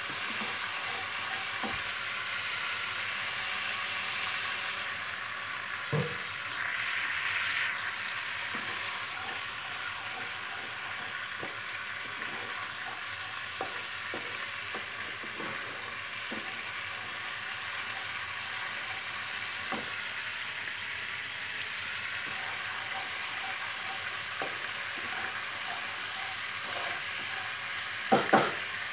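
Thick spice-paste gravy sizzling in a non-stick kadai as it cooks down, stirred with a wooden spatula that scrapes and taps the pan. The sizzle gets louder for a second or so about seven seconds in, and there are two sharp knocks near the end.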